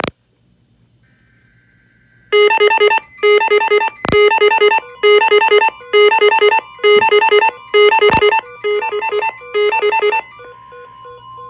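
Uniden Bearcat WX500 weather radio sounding its tornado-watch alert tone. A faint burst of two-tone alert header data comes first, then eight loud groups of rapid electronic beeps, evenly spaced, each under a second long. Near the end a steady single tone takes over, and a few sharp clicks fall about four seconds apart.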